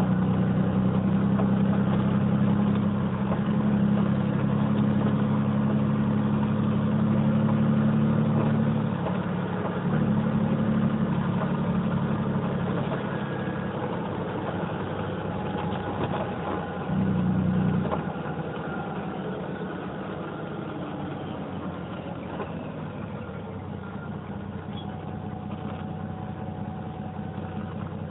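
Cummins LTA10 turbo-diesel engine of a Dennis Dragon double-decker bus, running under load with a strong, steady low drone. The drone drops out briefly about nine seconds in, returns, and falls away again at about sixteen seconds. After a brief surge it runs much more quietly for the last ten seconds.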